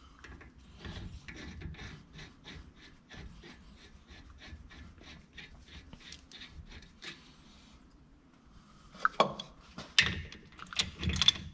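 Brake caliper bolt being run in with a wrench: a long run of faint, even clicks, about three or four a second, then a few louder metal clinks near the end as the wrench is worked on the bolt.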